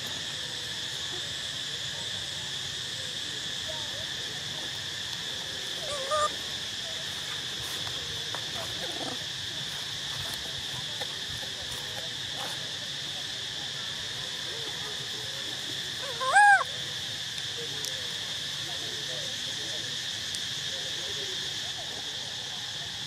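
Steady, high insect drone, with a few faint calls and one short, louder call about two-thirds of the way through whose pitch rises and falls.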